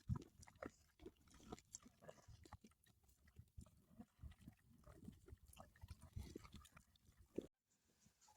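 Pigs grunting faintly, a run of short, irregular grunts.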